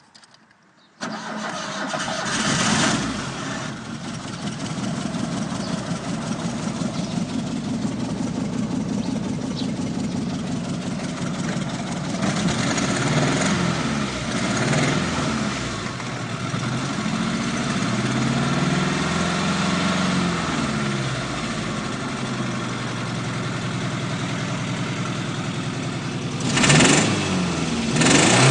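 VAZ-2109 four-cylinder petrol engine starting about a second in, then idling and being revved in short blips, with two louder revs near the end. The engine has a knock and heavy vibration that the owner is asking about.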